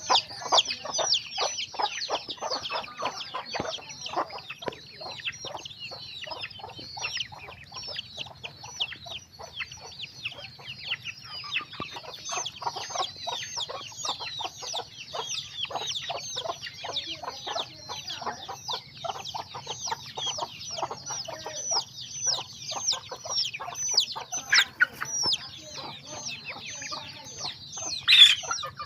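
A flock of free-range chickens: many chicks peeping in a dense stream of short, high, falling calls, with hens clucking among them and a louder call near the end.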